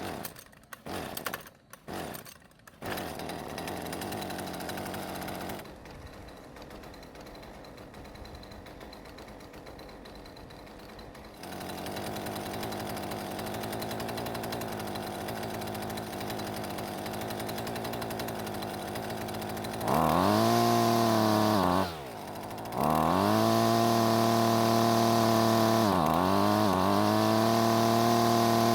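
Two-stroke Husqvarna string trimmer engine, with short bursts in the first few seconds as it is started, then idling while it warms up. About twenty seconds in it revs up high, drops away sharply for a moment, and revs up again, dipping briefly once more before holding at high speed. This is a run test after an ignition coil replacement, checking whether the engine still stalls.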